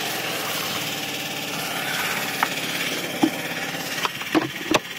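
Portable generator engine running steadily, with a few short clunks and knocks as the plastic shop vac and its hose are handled.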